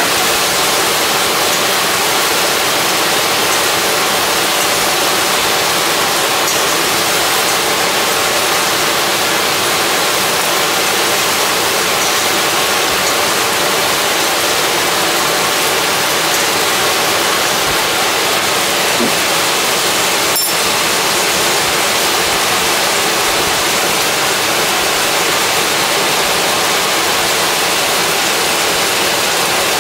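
Corded airhood portable range hood's fan running on its top setting 3: a loud, steady rush of air with faint whine tones, insanely loud. Butter sizzles in the stainless steel pan as it is spooned over a searing steak, with one sharp click about two-thirds through.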